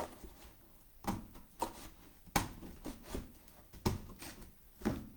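Irregular handling knocks and clicks, about six in all, as a small travel bird cage and its mesh and box parts are moved and adjusted by hand.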